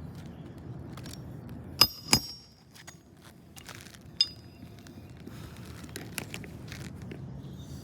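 Three sharp metal-on-metal strikes, each with a brief ringing tone: two in quick succession about two seconds in and a third about two seconds later. They come from roofing nails being set with a roof snake under a shingle.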